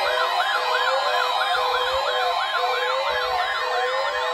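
Several electronic sirens wailing rapidly over one another: one sweeps up and down about three times a second, another rises and falls more slowly, and a steady high tone sounds beneath them.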